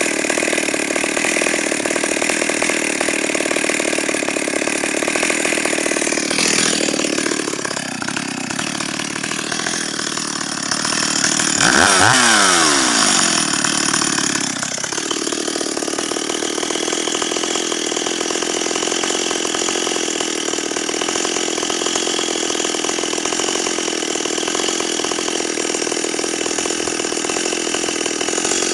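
Stihl 028 AV Super two-stroke chainsaw idling steadily. It revs up briefly about twelve seconds in and drops back to idle.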